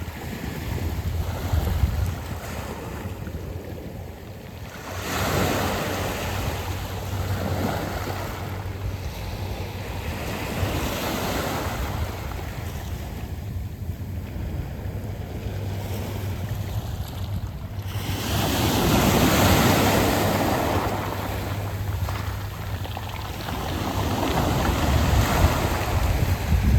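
Waves surging up and washing back over a beach of round pebbles, swelling and fading about four times, with wind rumbling on the microphone underneath.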